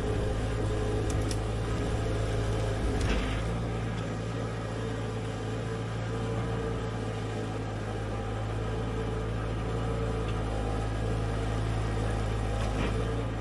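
Mini excavator's diesel engine running steadily under the operator, with the hydraulics working the boom and bucket as it digs. A brief clunk about three seconds in and another near the end.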